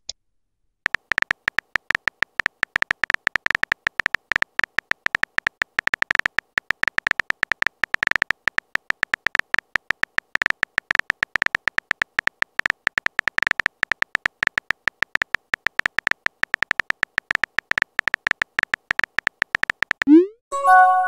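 Rapid keyboard tap clicks from a texting app's simulated typing, each a short tick pitched near 2 kHz. Near the end comes a rising swoop and a short chime as the message is sent.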